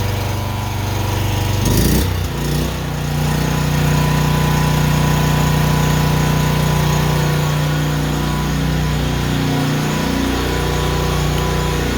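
Honda portable generator's small engine running; about two seconds in its speed rises and it settles into a steady, even run.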